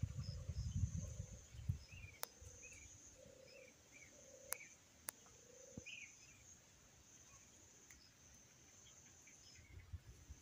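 Insects buzzing steadily at a high pitch while birds chirp short notes over and over, with a low repeated note beneath them. Wind rumbles on the microphone for the first two seconds, and a few sharp clicks come near the middle.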